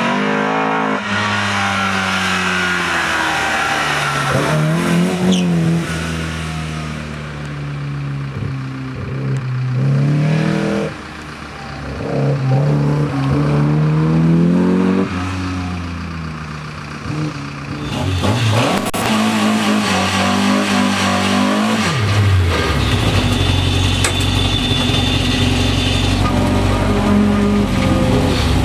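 A Group H Opel Kadett C slalom car's engine being driven hard through a cone slalom, its pitch rising and falling again and again as it accelerates and lifts between gates. About two-thirds in, the sound switches to a race car's engine heard from inside the cockpit: revving briefly, then running at a steady pitch while the car waits at the start.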